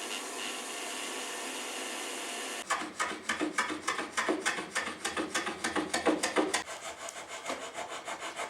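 A steady hiss, then from nearly three seconds in a hand tool worked back and forth on wood in quick, even strokes, about four a second, turning lighter and quicker near the end.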